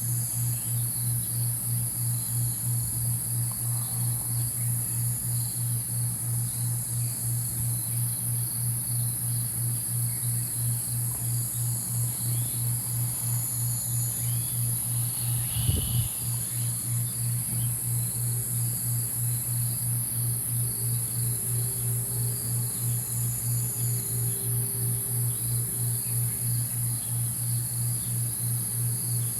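Sunrise nature ambience: steady high insect chirring over a low, rapidly pulsing hum, with a single thump about halfway through and a faint held tone a little later.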